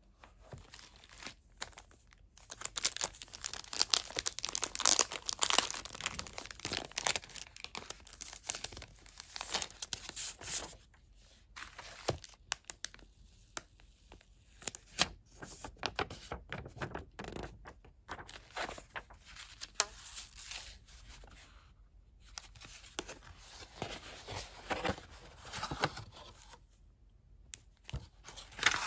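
Thin clear plastic packaging bag crinkling and crackling as it is opened and handled: a dense stretch of crackles for several seconds, then scattered crinkles.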